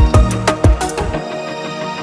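Background music with a steady drum beat and sustained synth notes; the beat and bass drop out for a moment about a second in.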